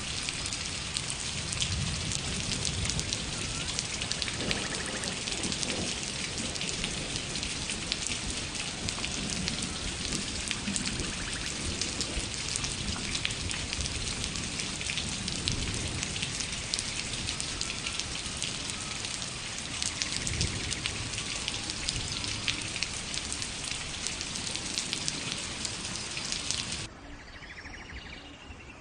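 Steady heavy rain, a dense patter of drops, which cuts off suddenly near the end and leaves a quieter background.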